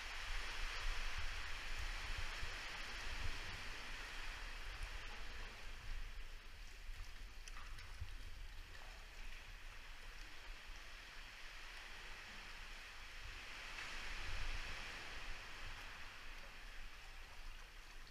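Seawater sloshing and splashing inside a sea cave, surging louder about a second in and again a few seconds before the end, over a steady low rumble.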